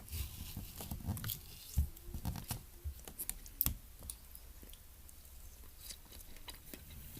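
Eating dragon fruit with a spoon: soft chewing and wet mouth sounds with scattered small clicks of the spoon. The sounds are thickest in the first few seconds and then thin out.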